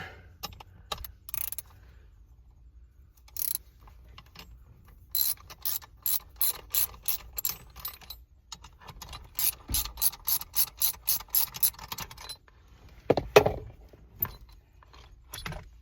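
A socket ratchet clicking as it is worked in runs of quick strokes, loosening a fastener on a steering column, with one louder knock near the end.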